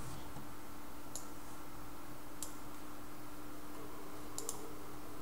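A few faint computer mouse clicks, spaced a second or more apart, over a steady low hum and background hiss.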